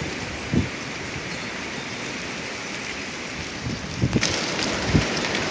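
Strong wind gusts rushing steadily in a severe windstorm, with short low thumps about half a second in and several more in the last couple of seconds, the loudest near the end.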